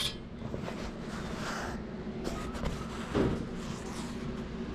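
Light rustling of nylon pack fabric being handled, in two soft brief swells, over a steady low room hum.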